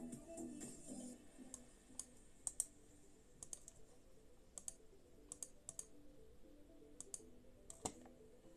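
Faint computer clicks, scattered and often in close pairs, from keys or a mouse being pressed. Faint music fades out within the first second.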